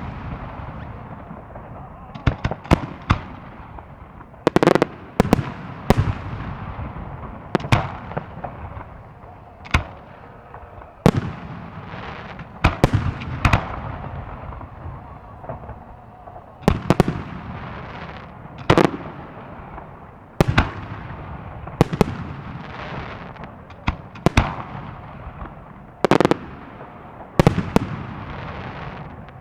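Fireworks salute: aerial shells bursting with sharp bangs about every one to two seconds, each followed by a rolling echo, over a continuous rumble and crackle.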